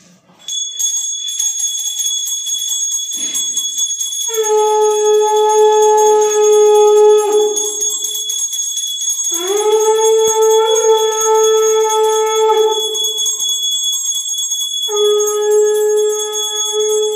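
A puja hand bell rings continuously while a conch shell (shankha) is blown in three long, steady blasts, the second sliding up in pitch as it starts. Together these are the bell and conch of the aarti offering.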